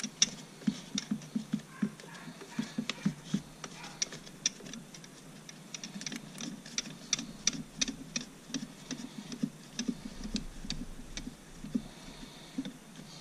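Irregular run of small metallic clicks and light taps, dozens of them, as a piston with its rings is worked by hand into the cylinder bore of a Mercury Thunderbolt 500 two-stroke outboard powerhead.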